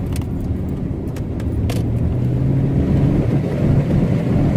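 Car engine pulling away and accelerating from a stop, heard from inside the cabin with the window down, with road and wind noise under a low engine hum that rises slightly in pitch and loudness. A few sharp clicks come in the first two seconds.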